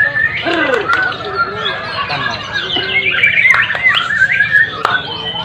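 Many songbirds singing and calling at once, a dense overlapping chorus of quick chirps, whistles and squawks.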